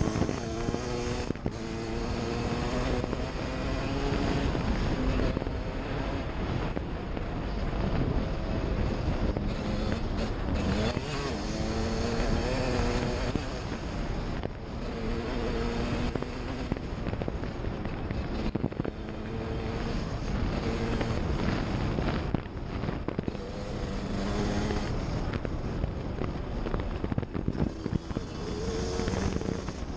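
Suzuki RM125's two-stroke single-cylinder engine revving hard, its pitch climbing and dropping over and over as the rider shifts through the gears, with wind noise on the microphone.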